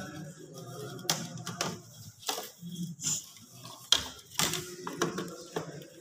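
Irregular light clicks and rattles of plastic plug connectors and wires being handled on a split air conditioner's indoor-unit control board.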